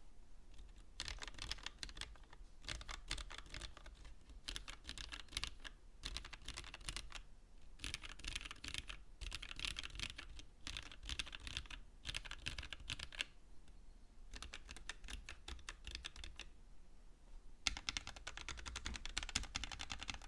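Typing on a custommk Evo70 mechanical keyboard with Gateron Hippo switches, GMK keycaps and a silicone-poured case: rapid runs of key clacks in bursts of a second or two with short pauses between, and a pause of about a second near the end before a last burst.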